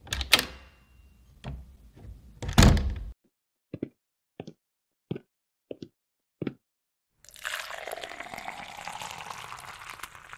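A few heavy thuds, then five short taps about two-thirds of a second apart, then liquid pouring steadily into a cup for about three seconds: a coffee-making sound effect.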